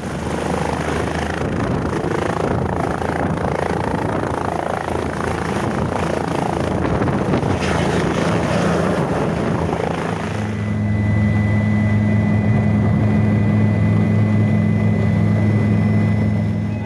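Helicopter running at the helipad, its rotor and turbine making a loud steady noise. About ten seconds in the sound changes to a steadier, louder low drone, as heard from inside the helicopter's cabin.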